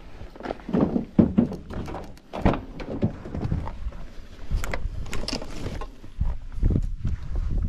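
Footsteps on gravel, then a Toyota Hilux pickup's rear door opened and an irregular run of knocks and rustles as gear and plastic bags on the back seat are handled.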